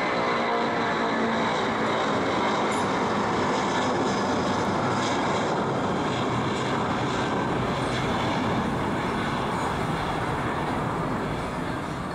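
Twin jet engines of a Malaysia Airlines Airbus A330-200 airliner during climb-out after takeoff: a steady, loud jet noise that eases slightly near the end as the plane pulls away.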